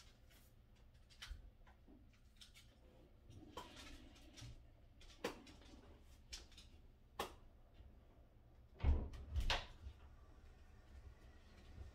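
Scattered clicks and knocks of kitchen handling, such as cupboards, drawers or dishes being moved, with two louder thumps about nine seconds in.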